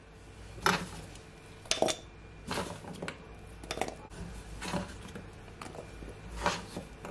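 Chunks of fresh ginger root dropped by hand into a glass bowl, giving a series of irregular knocks and clinks about once a second.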